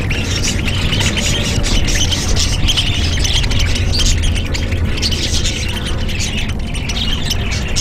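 A flock of budgerigars chattering and squawking as they feed, a dense mix of many short high calls, with a low rumble underneath.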